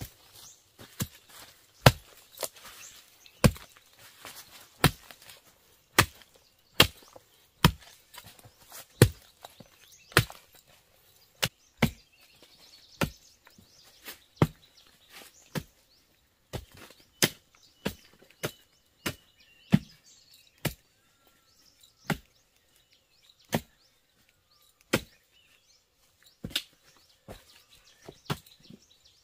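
Wood being chopped with a hand tool: a long run of sharp single blows, roughly one a second, with uneven gaps between them.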